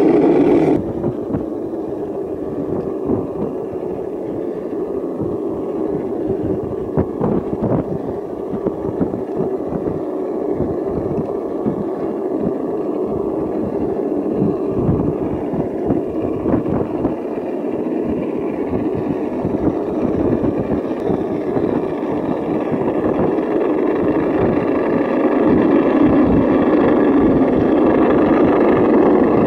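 Simulated V8 engine sound from the RC crawler's sound module, running steadily at low revs as the truck crawls, dropping back about a second in and building again near the end.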